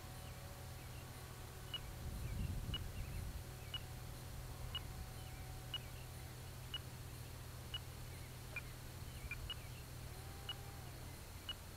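Faint outdoor ambience through a small keychain camera's microphone: a steady low hum with short high chirps about once a second. A brief low rumble comes about two seconds in.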